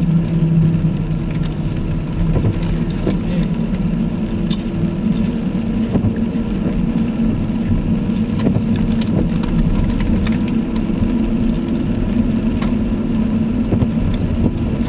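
Car engine and tyres on a wet road, heard from inside the cabin: a steady low engine hum whose pitch steps up about two seconds in, with scattered light clicks.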